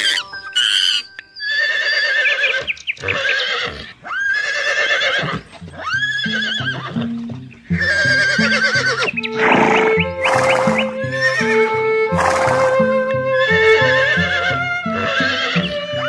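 Horse whinnying over and over, a series of wavering neighs about a second long each, with background music with a steady beat coming in about halfway through.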